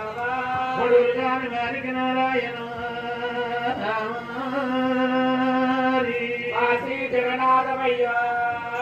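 Male Oggu Katha storyteller singing in a chanted Telugu folk style, holding long notes with short gliding breaks between phrases, over a steady low drone.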